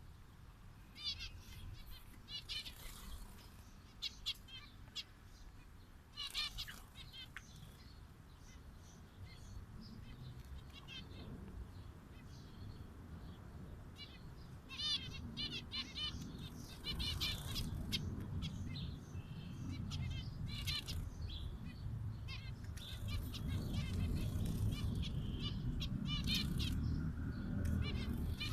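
Zebra finches chirping: many short, quick calls in scattered clusters, over a low rumble that grows louder in the second half.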